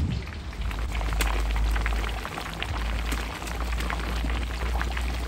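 Batter-coated chicken pieces deep-frying in hot oil: a dense, steady sizzle full of small pops and crackles, over a low steady rumble.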